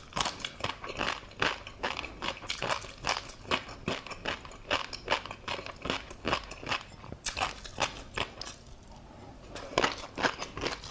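Close-miked chewing of tobiko fish roe and crunchy seafood topping: a quick run of small sharp pops and crunches, with a short lull about eight seconds in.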